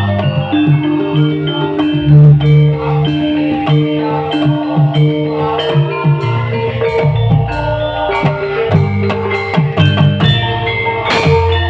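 Live band music played on stage: drums beating a steady rhythm under held melodic notes.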